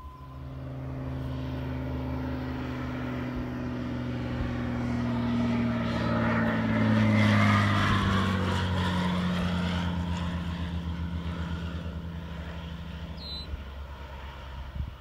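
Single-engine propeller airplane flying low overhead. Its engine drone grows louder to a peak about halfway through, drops in pitch as it passes, then fades away.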